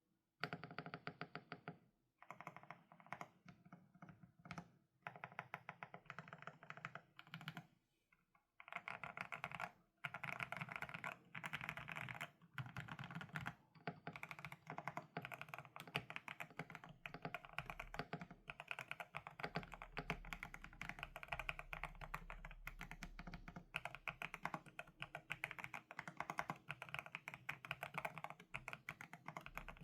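Typing on a GMK67 mechanical keyboard with lubed Outemu Hanny switches: rapid keystroke clicks, with a few short pauses in the first eight seconds, then continuous fast typing.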